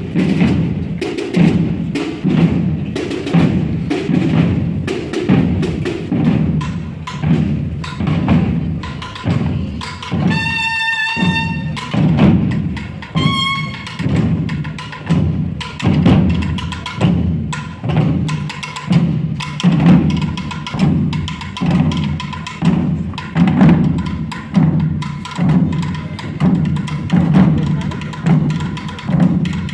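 A procession drum corps beating a steady marching rhythm, with an accented stroke about once a second. Two short, high pitched notes sound briefly about a third of the way in.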